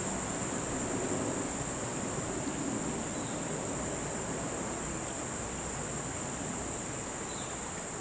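A steady chorus of insects trilling at one high pitch without a break, cricket-like.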